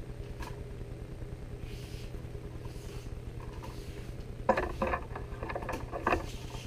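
Long kangaroo-leather strands being handled and hung up: faint rustles early on, then a cluster of knocks and rattles about two-thirds of the way through, over a steady low hum.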